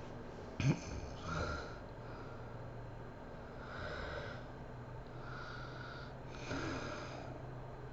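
A sleeping woman snoring: a sharp, loud snort about a second in, followed by several slow, noisy breaths a second or two apart, the last one near the end a little louder.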